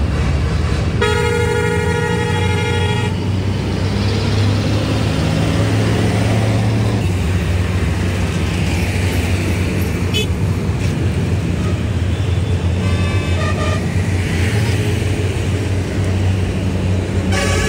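Heavy truck engine running steadily at low revs, with a vehicle horn blaring for about two seconds near the start and a shorter, fainter honk about two-thirds of the way through.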